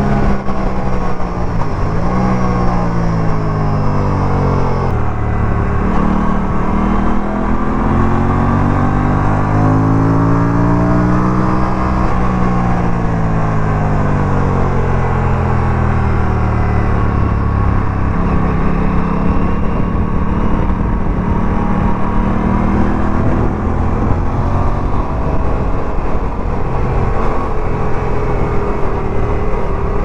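Aprilia RS 457's parallel-twin engine pulling hard on track. The revs climb, drop sharply about five seconds in, then climb again for several seconds. They fall away steadily for a few seconds more and settle into even running in the second half.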